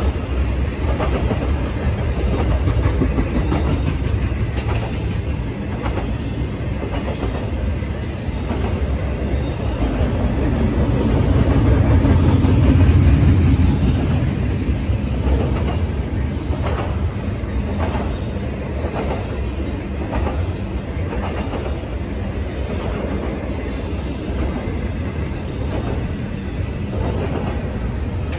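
Intermodal freight cars rolling past: a steady rumble of steel wheels on rail, swelling to its loudest about halfway through, with a string of clickety-clack as the wheel trucks cross rail joints in the second half.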